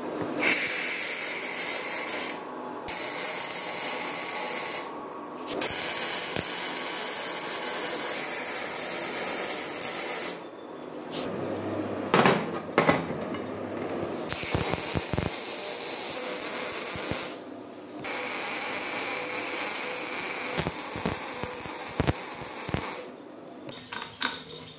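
Electric arc welding on a steel tube frame: a steady hissing arc in runs of several seconds, broken by short pauses, with a few clicks of metal near the middle.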